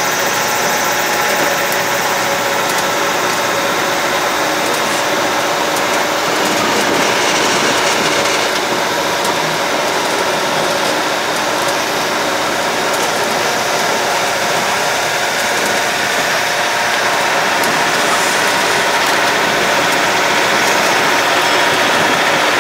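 A road tourist train's engine running steadily, with the rolling noise of its carriages, heard from aboard an open carriage as it moves.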